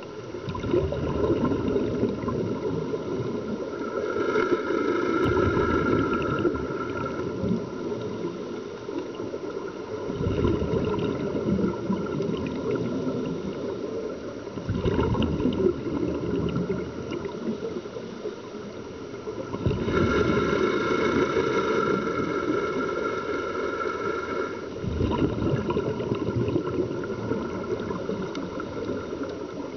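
Scuba regulator breathing heard underwater, muffled: bubbly exhalations surge for a few seconds, about every five seconds, and a steady whistling tone joins two of them.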